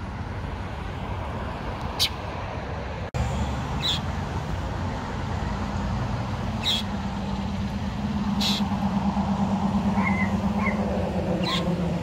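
Outdoor ambience: a steady low hum of distant traffic, with a few brief high chirps from birds scattered through. A low buzzing drone comes in about two-thirds of the way through and holds to the end.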